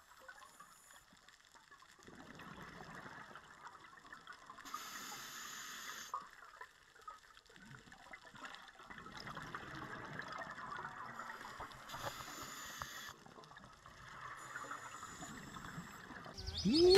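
Faint, muffled underwater noise picked up by a diver's camera, with a few short hissing stretches.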